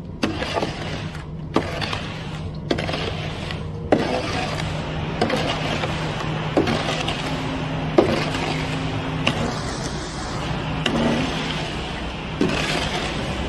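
Ready-mix concrete truck running steadily with a constant low hum while wet concrete slides down its metal discharge chute, with a few sharp knocks scattered through.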